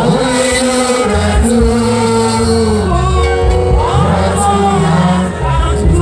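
Gospel worship song: voices singing long, held notes over a band with a steady, heavy bass.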